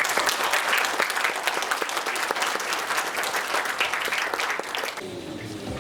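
Audience applauding, a dense clapping that thins out near the end.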